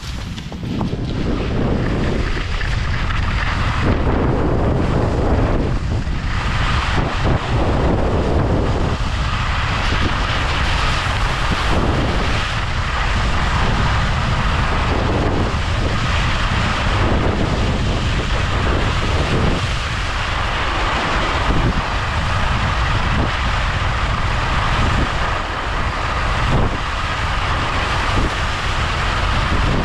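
Wind rushing over the microphone of a skier moving at speed, with the hiss of skis carving on groomed snow that swells and eases every second or two as the turns go by.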